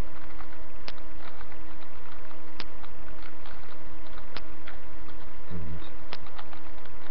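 Loud steady hiss with a low electrical hum from a webcam microphone, broken by a short tick about every second and three quarters.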